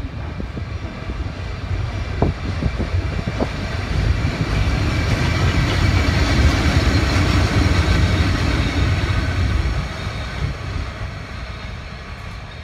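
SBB Ae 6/6 electric locomotive running light past at low speed: a steady high electrical whine over the rumble of its wheels on the rails, growing louder to a peak about six to nine seconds in and fading as it moves away. Two sharp clicks sound about two and three seconds in.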